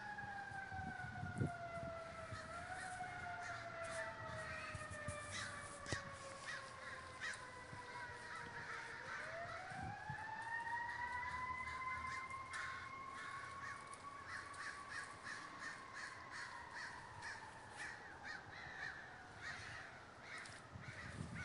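A large flock of American crows cawing constantly, many overlapping calls. Behind them a distant emergency siren wails, its pitch sinking slowly, then rising about nine seconds in and holding before fading.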